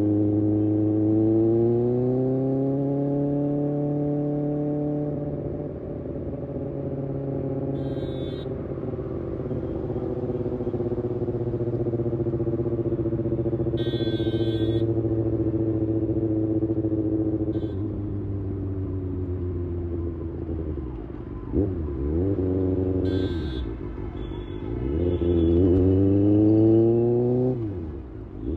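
Kawasaki Ninja ZX-6R's inline-four engine running under way, pulling up through the revs at the start, then holding a steady cruise. Near the end the revs drop and climb sharply a few times. Short high-pitched beeps cut in three times.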